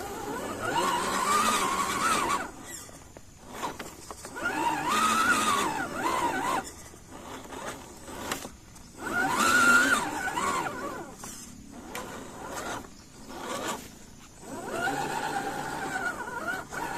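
1/10 scale RC pickup crawler's electric motor and gears whining in four bursts of throttle, each rising and then falling in pitch, the third the loudest.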